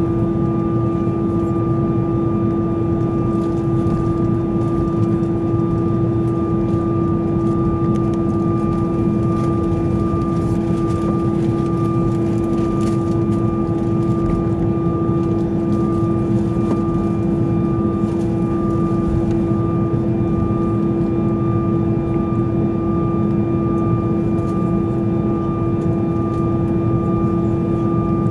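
Cabin noise of an Airbus A320 taxiing with its jet engines at idle: a steady hum with a strong constant drone and a fainter high, steady tone above it, unchanging throughout.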